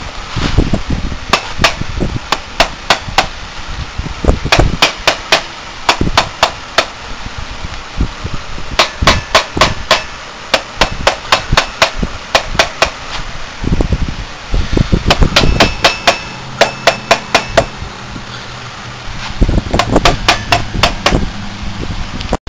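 A rubber mallet striking a wooden board laid across a Tuff Torq K66 transaxle, in several runs of quick taps at about four a second with pauses between. The blows drive the hydrostatic center case and motor down until they are firmly seated in the transaxle case.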